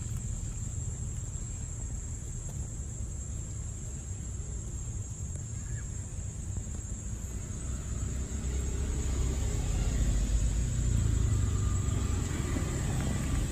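Low outdoor rumble that grows louder about eight seconds in, under a steady high-pitched whine.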